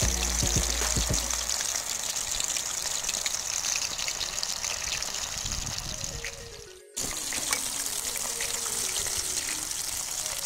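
Chicken pieces deep-frying in hot oil in a large aluminium kadai, a steady sizzle thick with small crackles and pops. The sizzle fades and breaks off briefly about seven seconds in, then carries on.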